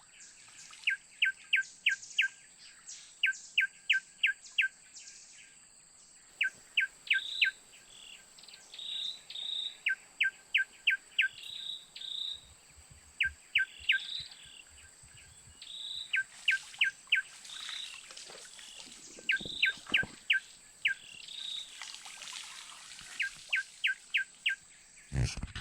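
Forest birdsong: a songbird repeats short runs of four to six quick, sharp, down-slurred notes every two to three seconds, while another bird gives higher single notes in between. A steady high insect drone runs underneath, and there is a dull knock near the end.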